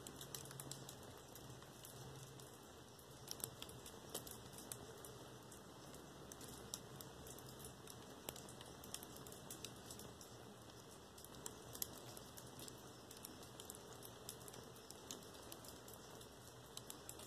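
Faint, irregular crinkling and ticking of a foil emergency blanket: scattered small clicks over a low hiss.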